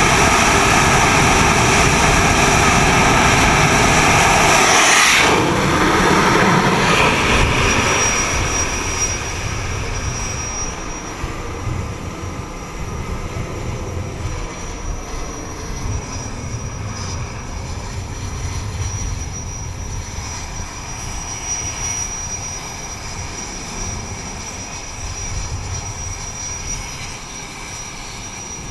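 F/A-18E/F Super Hornet jet engines running at full power on a steam catapult; about five seconds in the catapult fires and the jet noise falls away over the next few seconds as the aircraft launches. After that, a steadier, quieter jet noise with a thin high whine from other aircraft on the flight deck.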